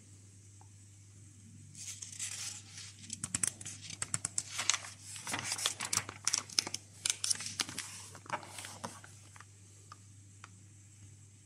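Pages of a thin paper instruction booklet being turned and pressed flat by hand: rustling and crinkling paper with many sharp crackles, starting about two seconds in and dying down near the end.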